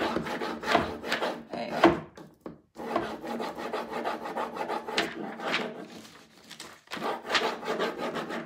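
Clear plastic carrier sheet of a rub-on furniture transfer rustling and crackling as it is handled, rubbed and peeled back from the painted panel, in irregular bouts with short pauses.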